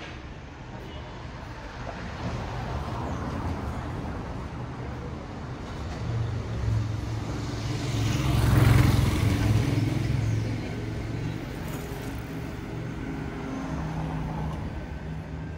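Street traffic: a motor vehicle passes close, loudest about halfway through, over a steady low rumble of traffic.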